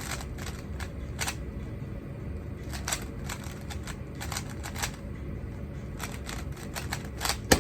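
Rubik's cube being turned fast in a speedsolve: a rapid, irregular run of plastic clicks, with one sharper, louder slap near the end.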